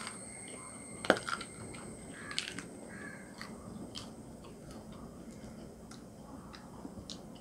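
Two people chewing raw king chillies, a quiet wet crunching with scattered small clicks and one sharp bite about a second in.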